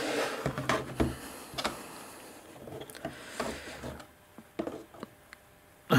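Hard black plastic mould pieces being handled and set down on a cutting mat: a run of separate light knocks and clatters with rubbing and scraping between them, thinning out to a few small clicks near the end.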